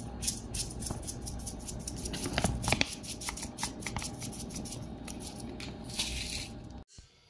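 Black pepper ground from a pepper mill over a pot of courgette stew: a run of small crunching clicks, with a few louder metal clinks about two and a half seconds in.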